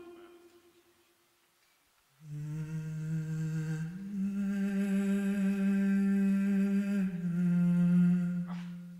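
A beatboxer humming held notes into a microphone at a loop station. A fading tone dies to near silence, then about two seconds in a low hum comes in with other sustained tones above it. It steps up to a higher note around four seconds and drops back down near seven.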